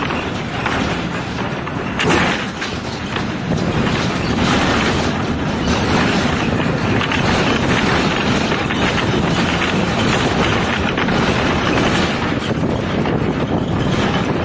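State-transport bus running slowly, heard from inside: steady engine noise with the rattle and knock of the body and windows, and a sharp jolt about two seconds in.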